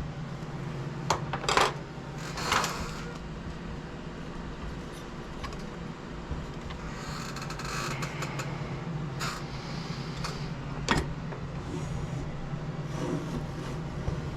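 Light clicks and scraping of small metal parts and hand tools being handled while an engine is positioned and its mounting bolts fitted in an RC helicopter frame: a few sharp clicks near the start, scraping around the middle and another click later on.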